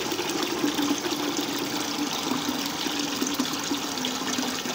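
Kitchen tap running a steady stream into a stainless-steel saucepan of foamy pasta water in the sink, splashing and churning, with a low hum underneath.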